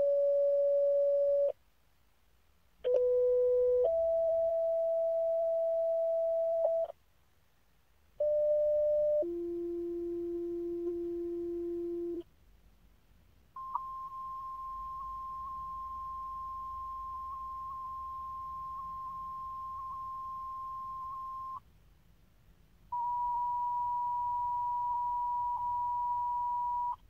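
Fire dispatch two-tone sequential pager alert tones from a portable radio's speaker: steady beeping tones in pairs, a short tone then a longer one at a different pitch, with short silences between pairs. These are followed by a long steady high tone of about eight seconds and a shorter high tone near the end. This is the weekly fire pager test being broadcast.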